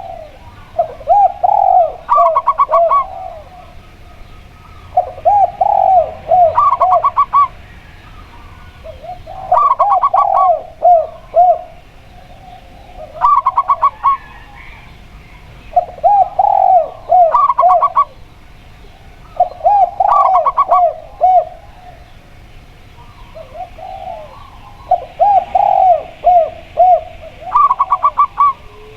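Zebra dove and spotted dove cooing in turn. Short runs of rapid higher notes alternate with lower runs of four or five coos, and the pair repeats every three to four seconds.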